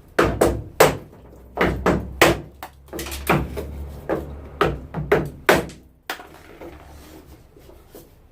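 About a dozen sharp, irregular knocks with a block of wood against the Mini's Webasto sunroof frame, driving out its aluminium side frames. The knocking stops about five and a half seconds in.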